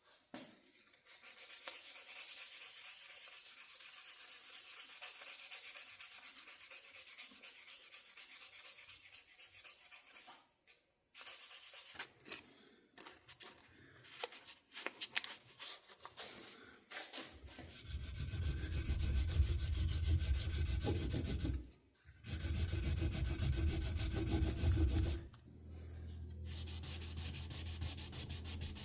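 Sandpaper rubbing over black canvas micarta knife-handle scales, steady back-and-forth sanding strokes. About halfway through, after a short break, the sanding turns scratchier and uneven, then louder and lower, stopping briefly twice.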